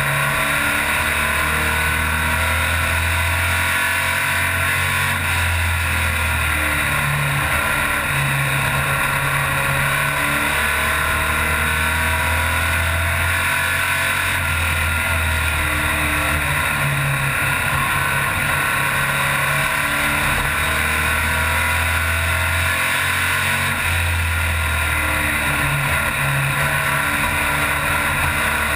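Stock car engine heard from inside the cockpit, running steadily at low speed, its note shifting up and down every few seconds over a constant loud rushing noise.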